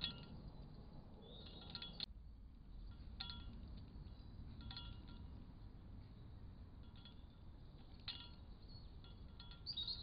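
Great spotted woodpecker pecking at a metal wire-mesh peanut feeder. The feeder gives short chiming rings every second or two, always at the same few pitches, with one sharp tap about two seconds in.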